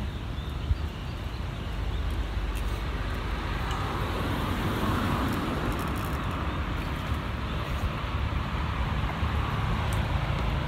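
Steady road traffic noise with a low rumble, swelling in the middle as a vehicle passes.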